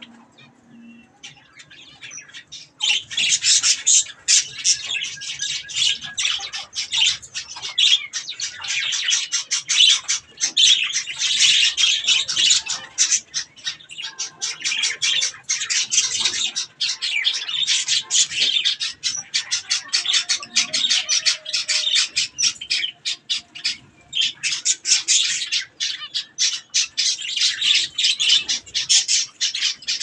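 Budgerigars chattering in a fast, unbroken stream of high chirps and squawks, starting about three seconds in after a quiet opening.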